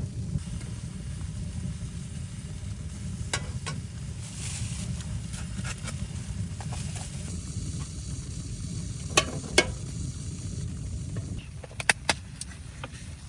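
Steady low wind rumble with scattered sharp crackles and clicks, the loudest in pairs a little after the middle and near the end.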